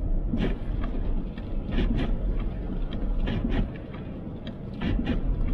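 Car driving on a slushy, snow-covered road, heard from inside the cabin as a steady low road and engine rumble. Short knocks come in pairs about every one and a half seconds: the windshield wipers sweeping back and forth.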